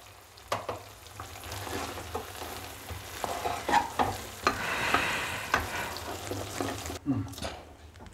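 A spatula stirring and scraping thick, sticky banana toffee in a hot pan, with irregular scrapes and taps against the pan over a light sizzle. The toffee is cooked down thick and pulling away from the pan, and the flame has just been switched off.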